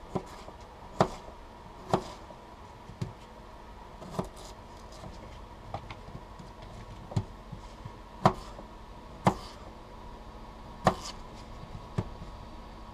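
Knife cutting food on a plate: sharp taps of the blade striking the plate, roughly one a second, with a pause of a few seconds midway.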